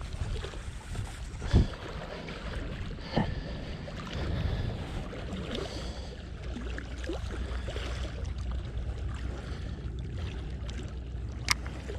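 Wind buffeting the microphone outdoors by the sea, a steady low rumble, with a few short sharp knocks, once about a second and a half in, again about three seconds in, and once near the end.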